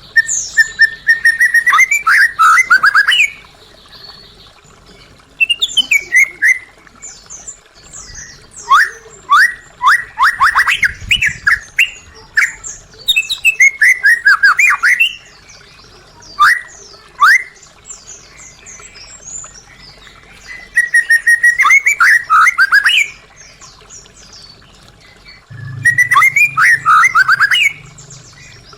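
White-rumped shama singing in about seven separate loud phrases of one to three seconds each, with short pauses between them. The phrases are clear whistles and quick runs of falling notes, and some open with a held note that breaks into a rapid trill.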